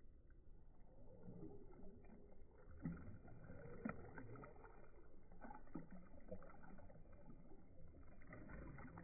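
Water sloshing and splashing in a plastic kiddie pool as a husky puppy paws at it, slowed down so it sounds low and dull, with two sharper splashes about three and four seconds in.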